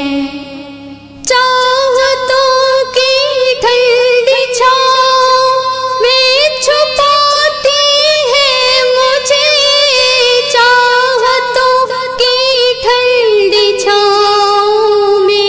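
Female voice singing a slow devotional Urdu song about a mother, with long held notes that waver and turn. The voice drops away briefly in the first second, then comes back in full.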